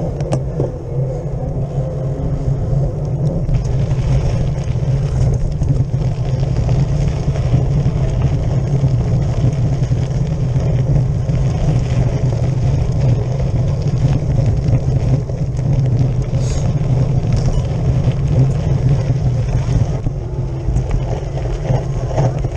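Wind rushing over the microphone of a camera mounted on a cyclocross bike's handlebar at speed, a steady low rumble mixed with the bike's tyre and road noise.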